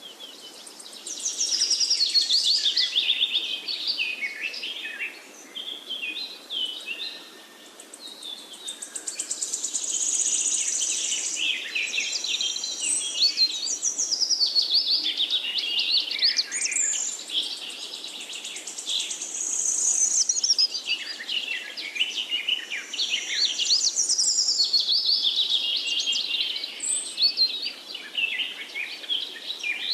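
Forest birdsong chorus: several birds singing at once, a dense mix of whistled phrases and rapid trills, with a short lull about six seconds in.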